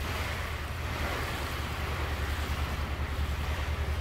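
A small sailboat's inboard engine running steadily with a low, even throb as the boat motors along. Water rushing past the hull and wind on the microphone add a steady hiss.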